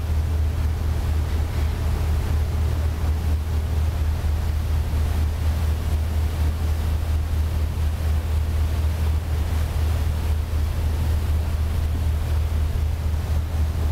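Passenger ferry's engine drone, a steady low hum, with its wake churning and foaming below and wind buffeting the microphone.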